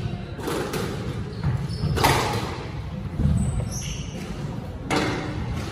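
Squash rally: three sharp strikes of the ball on racket and walls, roughly one and a half to three seconds apart, each ringing around the enclosed court. Short high squeaks of court shoes on the wooden floor come a little past the middle.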